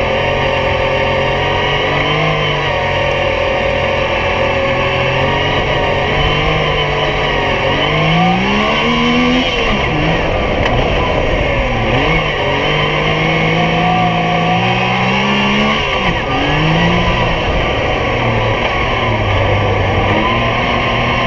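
Yamaha YXZ1000R's three-cylinder engine running hard under load. It climbs in pitch twice as the machine accelerates and falls back sharply about ten and sixteen seconds in.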